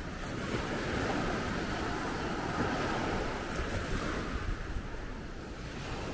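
Rushing sea water with wind buffeting the microphone, a steady wash without any clear engine note.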